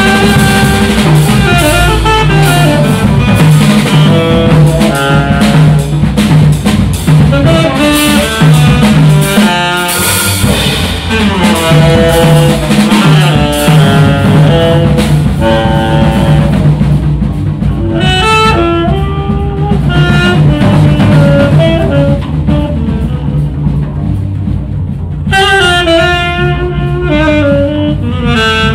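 Live jazz trio: a saxophone plays a solo line of many quickly changing notes over a walking double bass and a drum kit.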